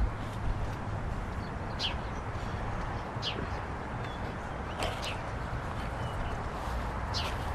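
A bird repeatedly giving short, sharp chirps that slide downward in pitch, about one every second and a half, over a steady low rumble.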